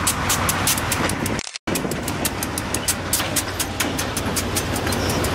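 GE B23-7 diesel-electric freight locomotives passing at close range: a low steady engine hum under a rapid, even clatter of wheels clicking on the rails. The sound cuts out for a split second about a second and a half in.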